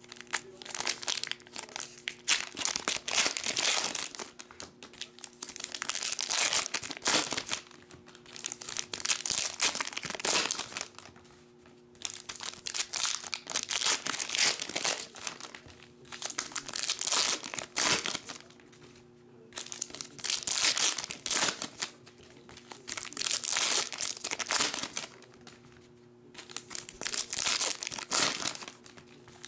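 Foil trading-card pack wrappers crinkling and tearing as packs are ripped open by hand, in bursts of a few seconds with short pauses between packs.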